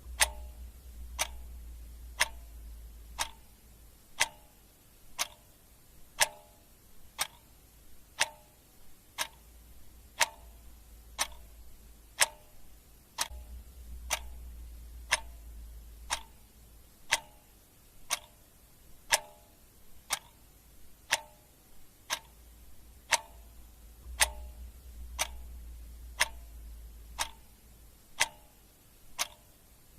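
Clock ticking steadily, one sharp tick about every second. A faint low hum swells in and out underneath three times.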